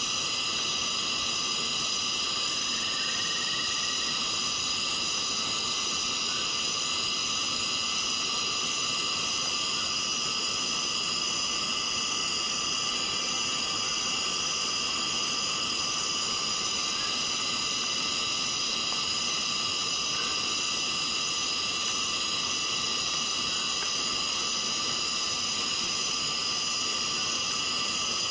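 Steady tropical rainforest ambience: an even hiss of rain under a constant insect chorus holding several high pitches, unchanging throughout.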